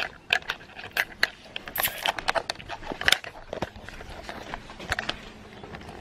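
Handling noise from a handheld camera being carried about: a string of irregular sharp clicks and knocks.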